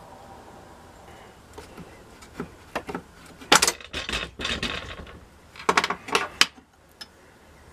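Metal parts of an old Acme No. 1 staple binder clicking and clattering as it is taken apart by hand: a few light clicks, then two bursts of metal-on-metal clatter about two seconds apart.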